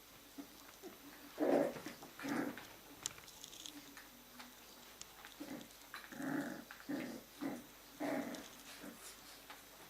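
Jack Russell Terrier puppies vocalising during play, in about half a dozen short bursts, with faint clicks and scuffles between them.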